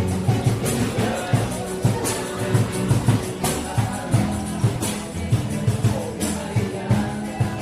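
Background music with a steady beat, bass and tambourine-like percussion.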